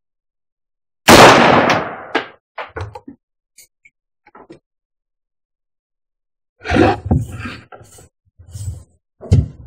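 A single loud gunshot about a second in, tailing off over about a second, followed by several softer thumps and knocks.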